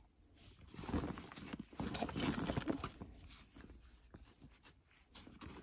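A fabric handbag being handled and shifted about on a fluffy rug: irregular rustling and crackling with small knocks, fading near the end.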